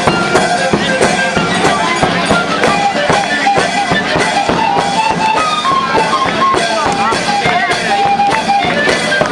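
Live street-procession music: drums keep a steady, fast beat under a stepping melody, with crowd noise throughout.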